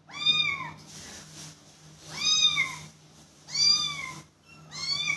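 Young kitten meowing four times while being held, each cry rising and then falling in pitch.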